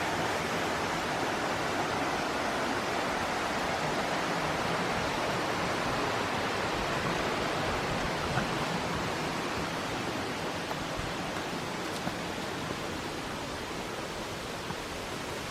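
Tendaki, a 98 m waterfall, giving a steady, even rush of falling water.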